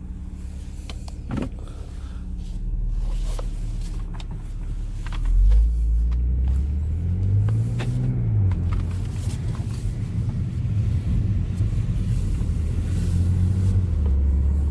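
Audi S5's supercharged V6 engine idling just after a push-button start. It swells about halfway through, with the engine note rising and falling once in a short rev, then settles back to a steady idle.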